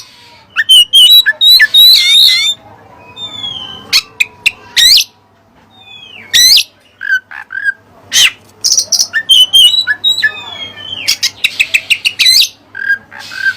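Oriental magpie-robin (kacer) singing a song stocked with mimicked cililin phrases: loud, sharp whistles, quick up-and-down slurs and short harsh chirps, with a fast run of repeated notes near the end.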